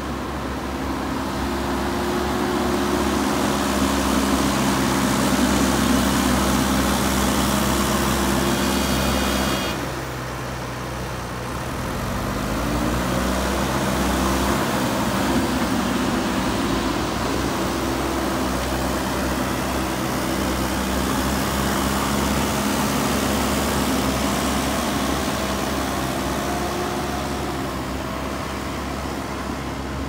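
JCB 3DX backhoe loader's diesel engine working under load, dropping in level and pitch about ten seconds in, then revving back up a couple of seconds later and running steadily. A brief high tone sounds just before the dip.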